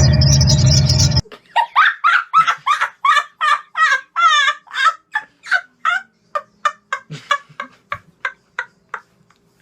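Kia Sportage engine running, cut off abruptly about a second in. Then a run of short pitched animal-like calls, about two or three a second, growing fainter and sparser toward the end.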